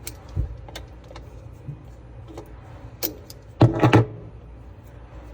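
A few light clicks and taps, then a louder quick run of knocks and rattles about three and a half seconds in, over a low steady hum: handling noises of something being worked by hand.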